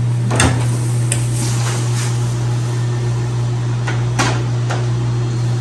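Light clicks and knocks of dishes and utensils handled on a stainless steel kitchen counter, about five, over a steady low hum.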